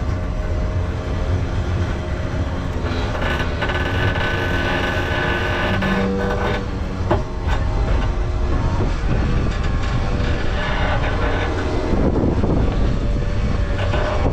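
Steady low rumble of a heavy vehicle running, with a high whine for a few seconds near the middle and scattered clicks and rattles.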